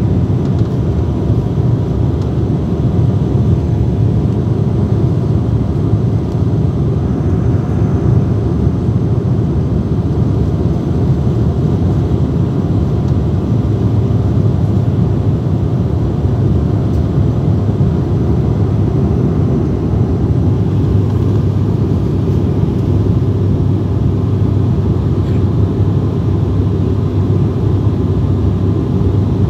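Airliner cabin noise: a steady low rumble of engines and airflow heard from inside the cabin, with faint steady tones above it and no change in level.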